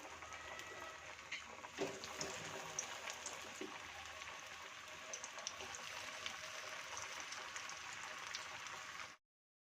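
Potato-poha tikkis frying in hot oil: a steady sizzle with many small irregular pops and crackles, cutting off suddenly about nine seconds in.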